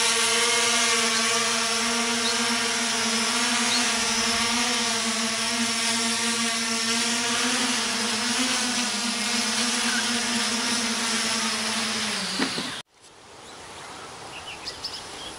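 Multirotor drone flying overhead: a loud, steady motor-and-propeller hum with a clear pitch that wavers slightly, dipping just before it cuts off abruptly near the end. After it, faint short bird chirps over a quiet outdoor background.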